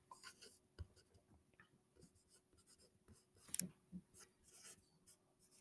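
Faint scratching and small taps of a pen writing on paper, with a louder run of strokes about three and a half seconds in.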